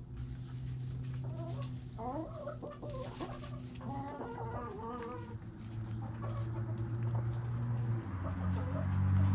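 Backyard hens clucking, a quick run of short calls about two seconds in that tails off by five seconds, over a steady low hum.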